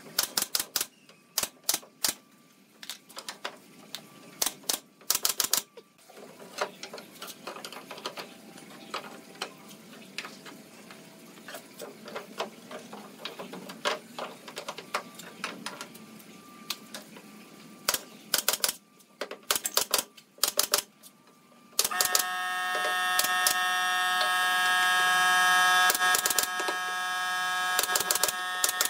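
Pneumatic nail gun firing into pallet-wood trim, sharp clicks and knocks, several in quick clusters, amid taps of wood being handled. About 22 s in, a steady pitched hum of several tones starts and grows louder, with more nail shots over it.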